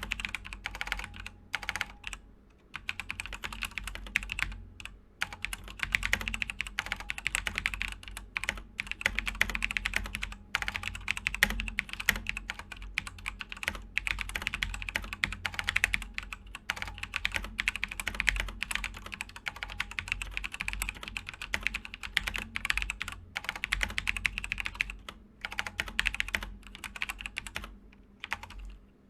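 Fast, continuous typing on a Razer BlackWidow TE Chroma v2 tenkeyless mechanical keyboard with Razer Yellow linear switches. The keystrokes run in dense runs with short pauses and stop near the end.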